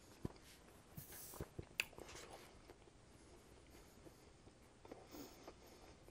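Quiet chewing of pizza with a few soft mouth clicks, and a brief paper-napkin rustle about a second in.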